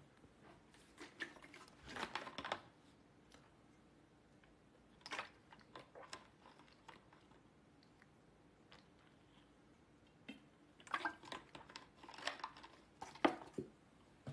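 Handling noises close to the microphone: three short spells of crunchy clicks and rustling, the last near the end the loudest, with quiet room tone between them.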